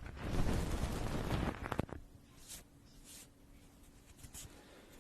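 Loud rushing, wind-like noise right on the microphone, an ASMR trigger, that cuts off about two seconds in; after it, a faint steady hum with a few short soft hissing strokes.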